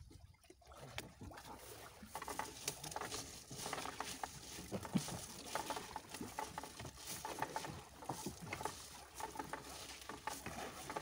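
Wet fishing net being hauled by hand over a boat's side, water pattering and splashing off the mesh with many small clicks and knocks. Quieter for about the first two seconds.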